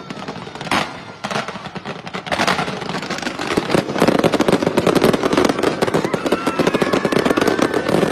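Fireworks display: a few separate bangs in the first couple of seconds, then from about two and a half seconds in a dense, continuous crackle of many shells bursting at once.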